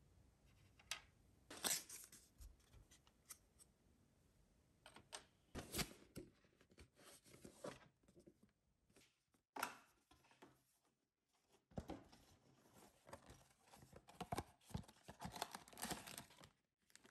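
Quiet handling of small cardboard boxes and a clear plastic bag of miniature parts: scattered light taps and clicks, then a denser stretch of plastic crinkling and rustling near the end.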